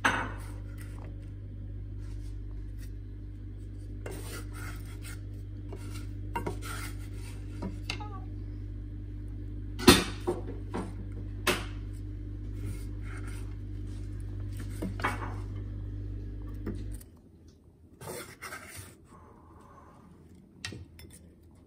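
Wooden spatula scraping and knocking against a frying pan as fried vegan chicken pieces are stirred and tipped into a bowl, with scattered scrapes and one sharp knock about ten seconds in. A steady low hum runs beneath and cuts off suddenly about three-quarters of the way through.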